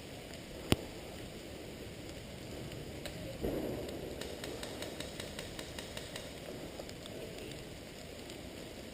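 Steady rain falling, with a sharp click about a second in and rustling that grows louder from about three and a half seconds in.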